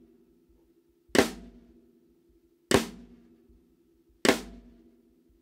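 Snare drum struck three times, evenly about one and a half seconds apart: each stroke is a sidestick rimclick combined with a normal snare stroke, giving a sharp, clap-like crack, and the drum rings on after each hit.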